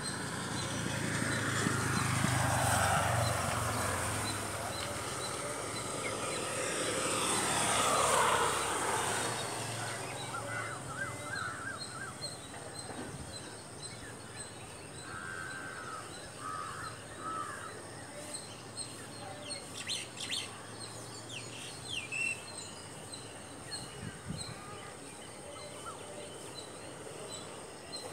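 Birds chirping and calling over steady outdoor background noise. Two passing vehicles swell and fade in the first ten seconds or so.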